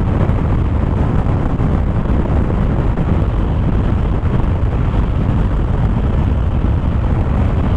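Yamaha NMAX V2 scooter's 155 cc single-cylinder engine held flat out near its top speed of about 110 km/h, almost buried under a loud, steady rush of wind on the microphone.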